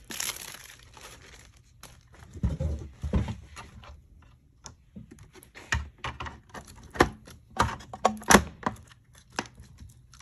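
Clear plastic wrap on a Garmin Livescope display crinkling as it is handled, a few low handling thumps, then a run of sharp plastic clicks and knocks as the head unit is snapped into its mount on the ice-fishing bundle frame, the loudest click about eight seconds in.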